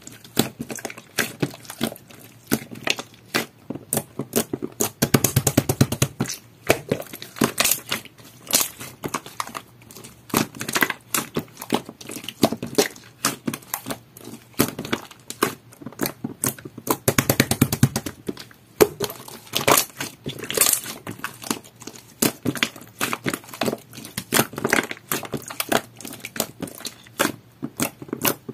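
Coral jelly-textured slime being squished and worked by hand while pearl powder is mixed in, giving a constant stream of small sticky clicks and pops. Two stretches of rapid, dense popping stand out, about five seconds in and again near the middle.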